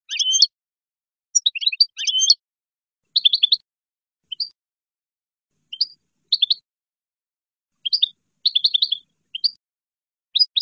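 European goldfinch (colorín) singing: about eight short phrases of rapid, high twittering notes, separated by brief pauses.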